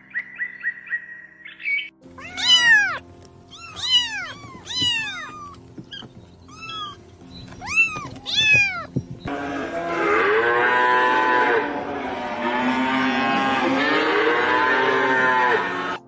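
Kittens mewing: separate high, arching mews, then from about nine seconds a loud, dense chorus of many overlapping mews that cuts off near the end. A few short bird chirps come first, and soft music runs underneath.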